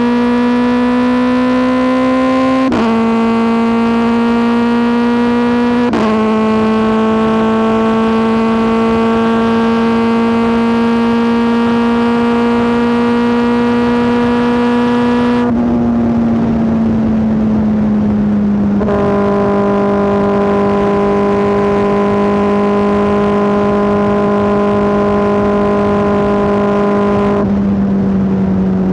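Kawasaki ZX-4RR's 399 cc inline-four running loud through an SC Project S1 exhaust while riding. It pulls through two quick upshifts, the pitch dropping sharply each time. It then climbs steadily in one gear before easing off to a lower, steady cruise.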